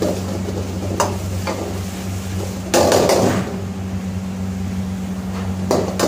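Metal cooking utensils knocking against a pan, a few sharp knocks with a louder clatter about three seconds in, over a steady low hum.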